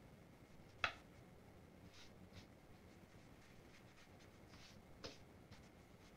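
Rubber eraser scrubbing pencil lines off a sheet of paper in short, soft bursts. A sharp tap about a second in and a smaller one near the end.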